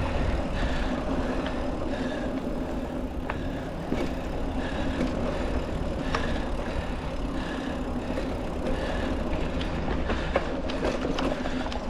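Mountain bike riding along a dirt trail: steady rumble of the tubeless knobby tyres rolling, with the bike rattling and sharp clicks and knocks every so often over roots and rocks.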